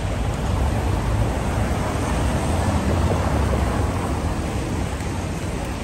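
Rainy city street: a steady hiss of rain over a deep, even rumble, slightly louder in the first few seconds.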